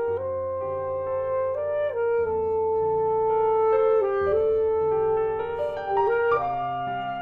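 Alto saxophone playing a melody of long held notes over piano accompaniment, the piano's lower notes changing every couple of seconds.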